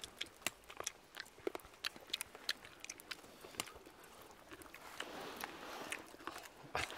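Irregular crisp crunches and clicks of someone biting and chewing roasted pork, with a soft rushing noise about five seconds in.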